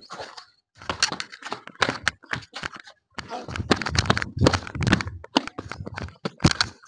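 Scuffling feet: sandals scraping and slapping on concrete and bare dirt as a man is dragged and shoved along, a fast, irregular run of scuffs and knocks with a louder knock near the end.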